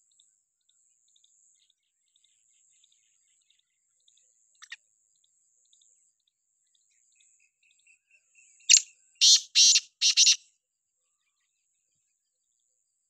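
Black francolin calling: one harsh, grating call of four rasping notes in quick succession about nine seconds in, preceded by a single short sharp note near the middle. A faint high hiss and tiny chirps lie underneath.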